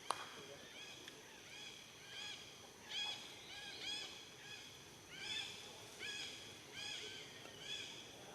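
An animal giving a long run of short, high, arching calls, about three a second.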